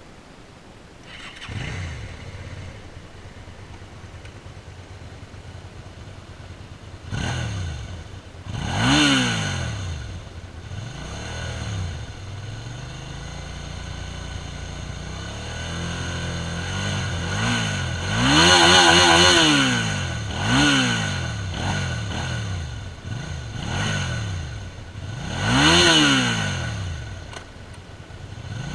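2006 Suzuki SV650S 645 cc V-twin with its stock exhaust idling and being revved, about seven throttle blips in which the engine note climbs and falls back to idle; the strongest revs come near the middle and near the end.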